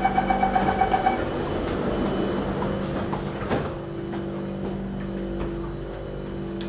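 Singapore MRT Circle Line train's door-closing warning: a rapid run of beeps for about the first second. This gives way to the carriage's steady running hum as the train sets off, with a knock and a steady motor tone coming in about halfway through.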